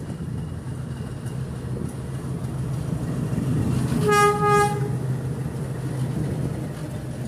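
YDM-4 metre-gauge diesel locomotive running past at low speed, its engine a steady low drone, with a short horn blast about four seconds in.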